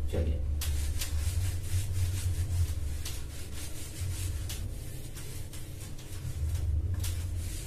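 Whiteboard eraser rubbed quickly back and forth across a whiteboard, wiping off marker writing in a long run of scrubbing strokes over a steady low hum. The strokes start about half a second in and stop shortly before the end.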